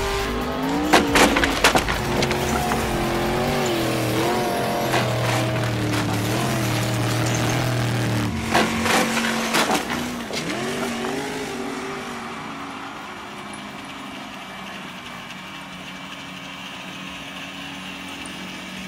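RC buggy's motor running, its whine rising and falling in pitch as the throttle changes, with a few sharp clacks of wooden planks near the start and again about nine seconds in. The motor sound fades after about twelve seconds.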